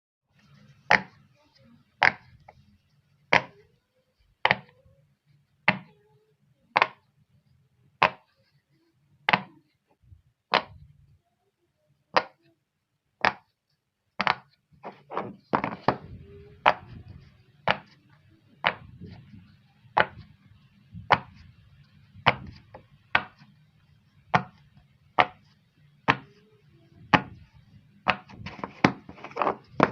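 Pop-it silicone fidget toy having its bubbles pressed one at a time, each giving a short sharp pop. The pops come about once a second at first, then faster and less evenly from about halfway.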